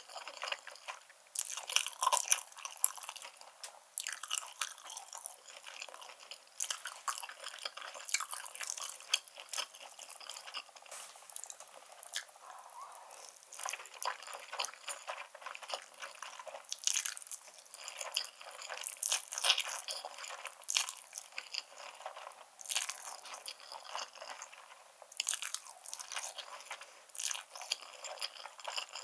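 Close-miked eating sounds of black-bean noodles with grilled beef and enoki mushrooms: chewing, with a dense, irregular run of wet clicks and smacks and no bass.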